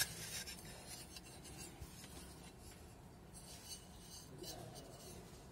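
Faint rubbing and scraping of a hand handling and turning an aluminium extrusion profile, in short scratchy bursts, with a sharp click right at the start.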